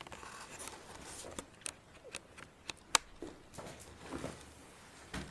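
Two dogs play-fighting: scuffling and rustling with a run of sharp clicks and taps, the loudest about three seconds in.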